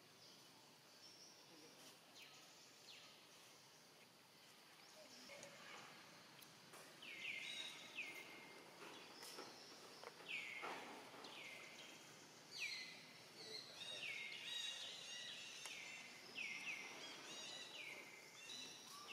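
A run of short, high-pitched animal calls, each dropping in pitch, repeating about once or twice a second from about seven seconds in, over faint outdoor background.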